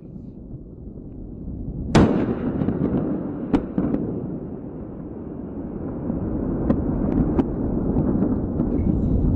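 Rocket explosion: a low rumble building up, a sudden sharp blast about two seconds in, then a lasting low rumble broken by scattered crackling pops.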